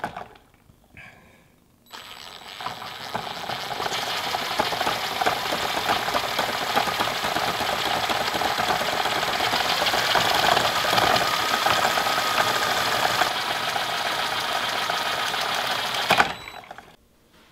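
Cordless drill running steadily, spinning a spool to wind fishing line off a supply spool with a whirring hiss. It starts about two seconds in and stops shortly before the end.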